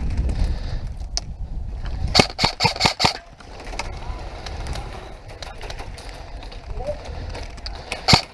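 Airsoft guns firing: a quick run of about six sharp shots two to three seconds in, and a couple more shots near the end, over low rumbling noise of movement and wind.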